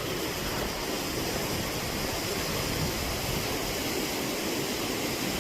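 Strong spring wind blowing hard and steadily, a continuous hiss with an uneven low rumble of wind striking the microphone.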